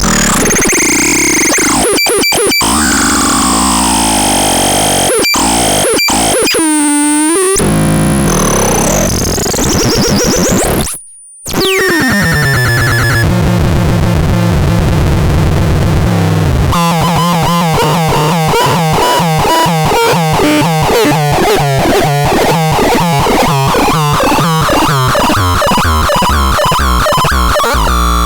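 Rubbish Synth 9 synthesizer making harsh, noisy electronic tones with gliding pitches and short cut-outs, dropping out briefly near the middle, then settling into a fast, even buzzing pulse.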